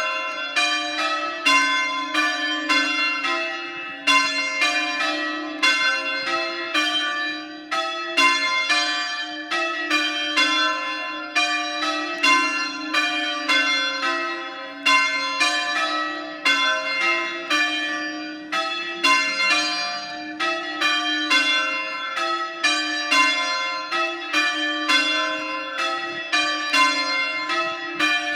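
Mears ring of three church bells, tenor 231 kg in C, change ringing: very loud strokes follow each other in an even rhythm, each bell's hum ringing on under the next strike.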